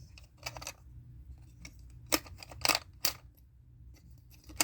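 Sharp plastic-and-metal clicks of a small toy gumball machine being worked after a coin goes in, a handful of irregular clicks, the loudest about two seconds in.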